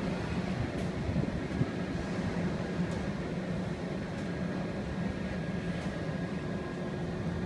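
Steady low mechanical hum and rumble inside the enclosed Sky Cabin tower ride, with a few faint clicks.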